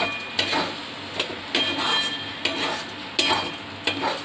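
Long metal spatula scraping and knocking against a metal wok while stirring thick semolina halwa, with a string of sharp clanks that ring briefly, about one every half second to second.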